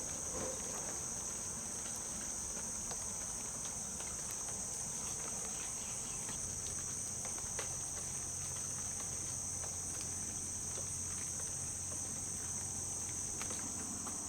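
Steady high-pitched chorus of insects in the woods, with a few faint scattered ticks.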